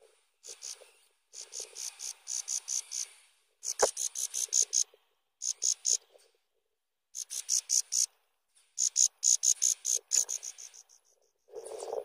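Nestlings' begging calls: rapid series of high, thin chirps in bursts of several notes each, broken by short pauses. A single sharp knock about four seconds in.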